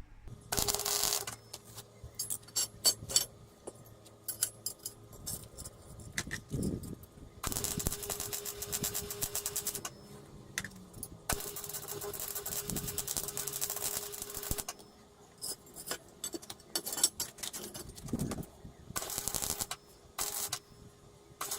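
Arc welding on steel box section in several short runs of a few seconds each, a dense crackle with a steady hum under the longer runs.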